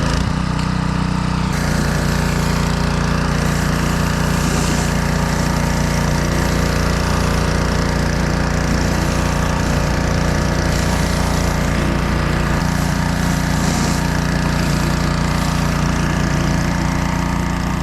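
Dewalt 3300 PSI gas pressure washer engine running steadily under load, with the hiss of high-pressure water spraying from a rotating driveway surface cleaner. About a second and a half in, the spray hiss and the engine note grow louder.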